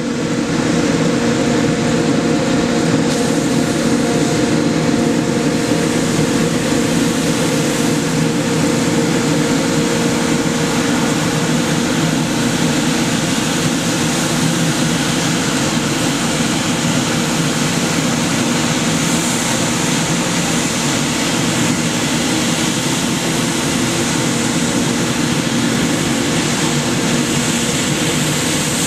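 Scania P94G 310 street-sweeper truck at work, its engine and sweeping gear running together in a loud, steady drone with a low hum underneath.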